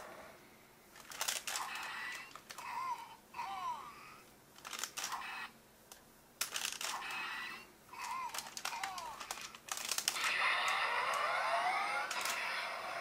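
Plastic parts of a Go-Onger Engine Bus-on transforming toy bus clicking and clattering as it is handled, in several short spells. Short chirping tones that rise and fall come between the clicks, and a run of rising tones sounds near the end.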